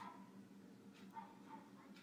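Near silence: faint room tone with a low steady hum and a few faint brief sounds.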